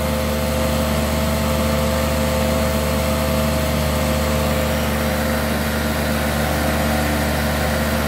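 Hoover Decade 80 upright vacuum running steadily on its normal speed: a steady motor hum with several held tones over a rush of air. It carries a vibration that the owner puts down to brushroll bearings worn by carpet freshener powder.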